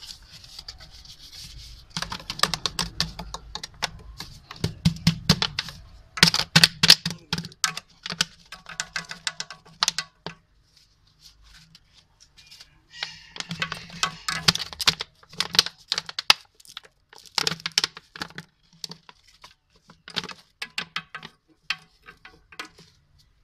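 Plastic bag crackling and rustling as kitchen waste is tipped from it into a compost pot. It comes in bursts of sharp crinkles, with a quiet spell about halfway.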